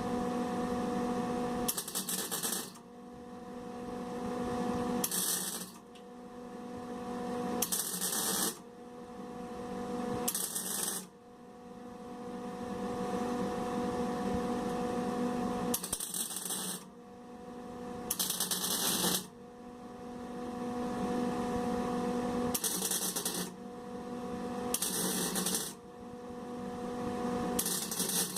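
Lincoln MIG Pak 10 MIG welder arc, .030 solid wire under 75/25 gas, crackling in about nine short bursts of around a second each with pauses between. These are stitch welds on a sheet-metal patch panel, short tacks spread apart so the metal can cool and not warp. A steady low hum carries on between the bursts.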